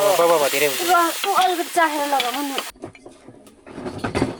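Chicken gravy sizzling and frying in a pot while it is stirred, with voices over it. The sizzle cuts off abruptly a little over halfway through.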